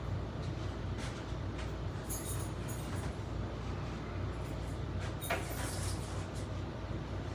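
A few light knocks and clatters from an old microwave being handled and moved, over a steady low hum.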